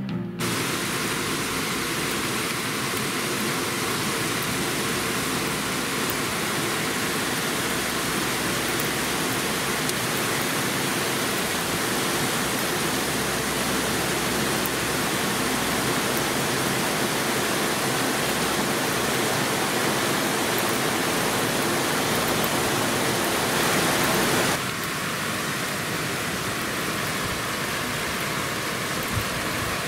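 Torrential rain pouring down as a steady, dense rushing noise. About 24 seconds in, the sound changes abruptly and becomes slightly quieter.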